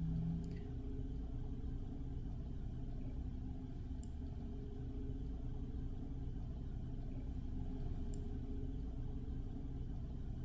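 Steady low background hum and rumble, with three faint high ticks about four seconds apart.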